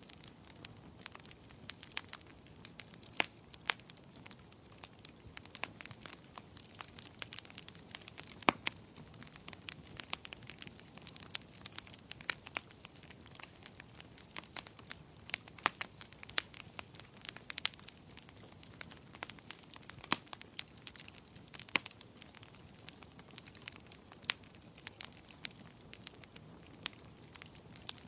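Fireplace fire crackling: irregular sharp pops and snaps, several a second and some much louder, over a soft steady hiss.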